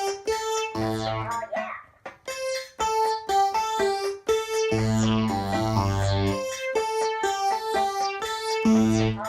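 Alesis Micron synthesizer and Casio SK-1 keyboard played together: a repeating riff of short, clipped notes, with lower held chord notes coming in about a second in, around five seconds in, and near the end.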